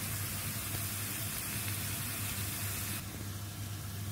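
Ground meat and diced bell pepper sizzling in a frying pan with an even hiss. About three seconds in, the hiss drops to the softer sound of a pot of spaghetti boiling. A steady low hum runs underneath throughout.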